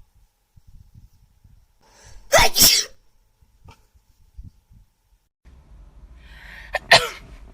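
A woman sneezes, a short, sharp burst about two seconds in after a brief in-breath. A few seconds later, over a louder room background, she sneezes again.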